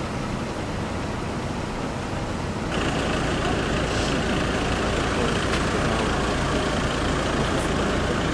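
Steady rumble of vehicle engines idling, which gets louder and brighter about three seconds in, with a few faint clicks.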